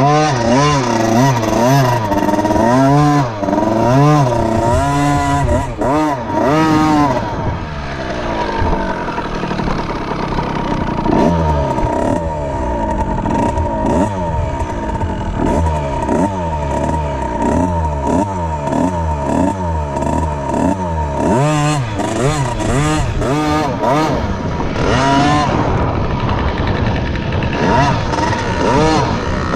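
Small motocross bike's engine, heard close up. It revs up and down in quick blips about once a second for the first several seconds, then runs under load on a dirt track, its pitch climbing and dropping again and again with the throttle.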